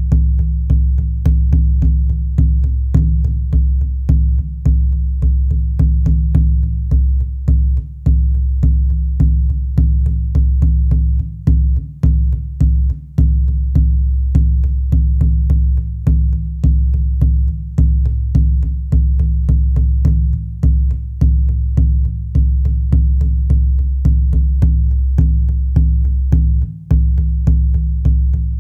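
Shamanic frame drum beaten in a steady, even rhythm, each stroke giving a deep booming resonance.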